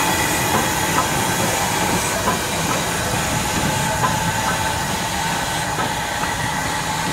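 LMS Ivatt Class 2MT 2-6-2 tank steam locomotive moving slowly, its steam hissing steadily, with a few light clanks from the wheels and motion. It grows slightly quieter as it draws away.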